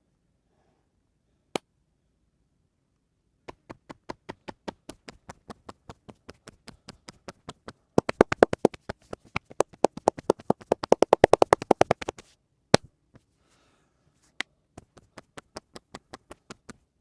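Rhythmic massage tapping with the hands: sharp slaps several times a second, growing louder and quicker in the middle, with single harder slaps before and after the run.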